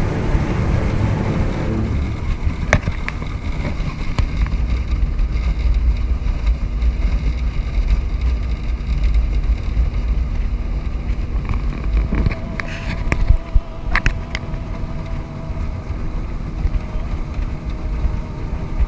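Steady low rumble of a vehicle driving, with a few sharp knocks and rattles about two-thirds of the way through. Background music cuts off near the start.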